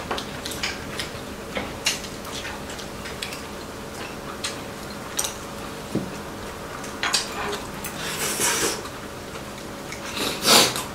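Chopsticks and spoons clicking and tapping against ceramic bowls and plates as people eat, in scattered light strokes, with a louder scraping burst near the end. A faint steady hum lies underneath.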